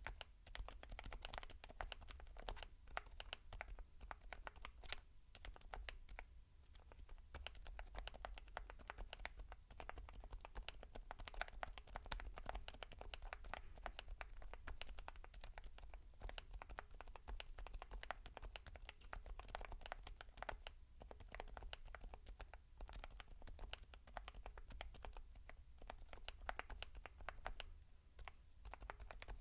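Continuous typing on a mechanical keyboard fitted with Geon HG Yellow silent tactile switches: soft, damped keystrokes in quick runs with short pauses, fairly quiet.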